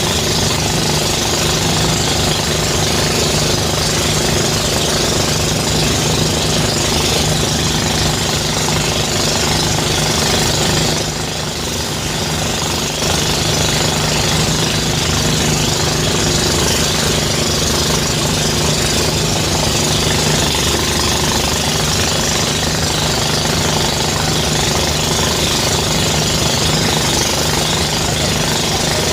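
Engine-driven rice thresher running steadily under load, the engine's hum mixed with the rattling of the threshing drum. The level dips briefly about eleven seconds in, then returns.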